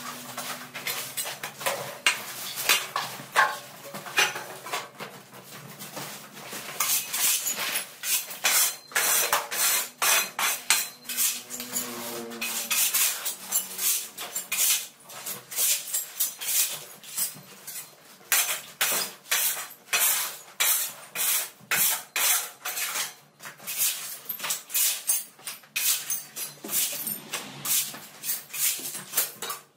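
Rapid, irregular clattering and scraping of hard objects, like metal and crockery being knocked about and handled, growing busier about a quarter of the way in.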